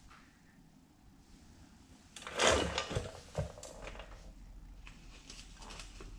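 Handling noise from bike parts and hand tools: a short clatter about two and a half seconds in, two sharper knocks just after, then light scattered rustling.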